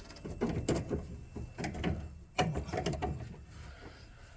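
Metal clicks and clanks of a bus's front throttle linkage being worked by hand, its parts shifted to line up the holes for a pivot pin. Several separate clicks, the sharpest about two and a half seconds in.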